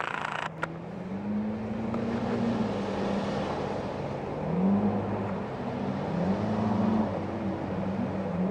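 Outboard motor on a small runabout running hard, its pitch rising and falling several times as the boat turns and crosses waves, over a steady rush of water.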